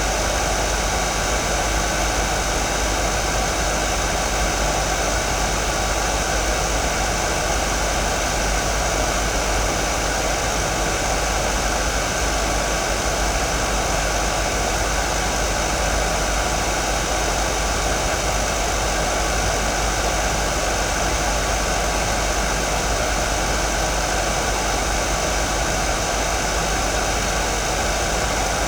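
Hair dryer running steadily: an even rush of blown air with a faint, steady motor whine.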